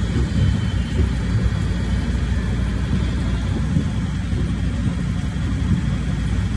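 Steady low rumble of an amusement-park ride train running along its track.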